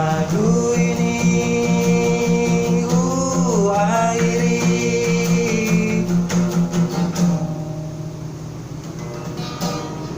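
Acoustic guitar strummed under a long held sung note that bends in pitch partway through. About seven seconds in the voice stops and the guitar rings on more quietly as the song ends.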